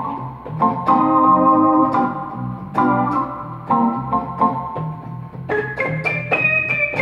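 Portable electronic keyboard played in an organ-like voice: held chords over a bass line, with the melody moving higher about five and a half seconds in.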